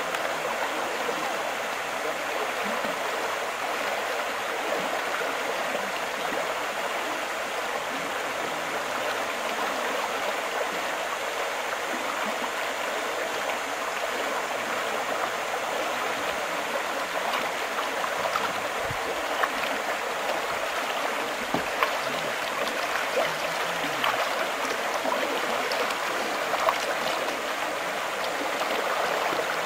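Water rushing steadily over a shallow river rapid, with a few short clicks and splashes in the last third.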